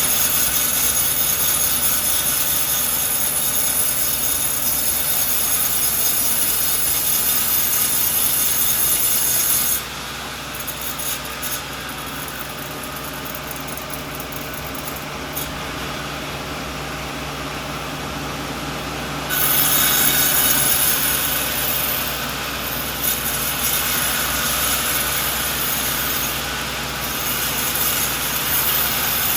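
Sawmill blade cutting through a coconut log, a steady loud hissing rasp. About ten seconds in it drops quieter and duller for about nine seconds, then comes back at full strength.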